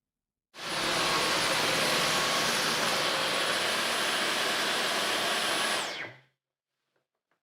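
A Dyson cordless stick vacuum switched on and running steadily for about five seconds: an even rush of air with a thin high motor whine. It is then switched off, the whine falling as the motor spins down.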